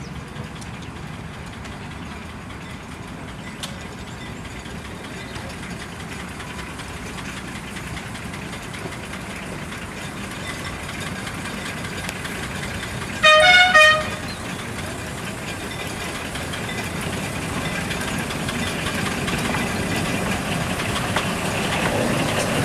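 Engine of a 15-inch gauge miniature Baby Deltic locomotive running as it approaches and draws alongside, growing steadily louder. It gives one short two-note horn blast about thirteen seconds in.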